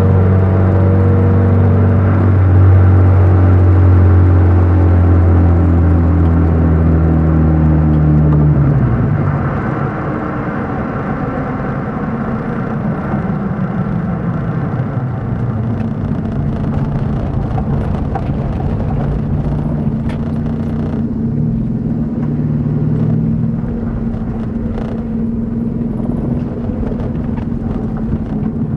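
Car engine and exhaust with an exhaust cutout, driving: a loud, steady drone for about the first nine seconds, then it drops to a quieter note whose pitch slides and wanders to the end.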